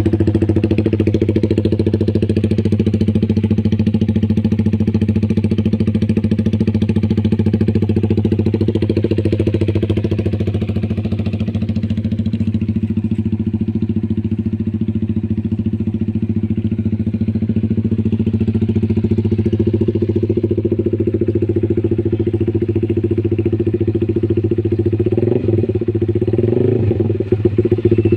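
Honda Supra GTR 150's single-cylinder engine idling steadily through an SC Project aftermarket exhaust, with a few light throttle blips near the end.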